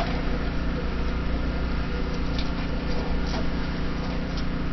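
A steady low mechanical hum, with a few faint clicks scattered through it.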